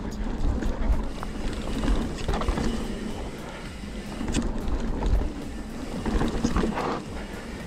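Mountain bike running fast down a dirt trail: wind rushing over the microphone and the tyres rumbling over the ground, with scattered clicks and rattles from the bike.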